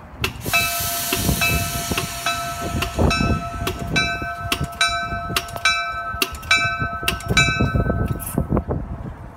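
A passenger train's bell ringing at about two strikes a second over the low rumble of the train rolling along the track. The ringing stops about a second before the end.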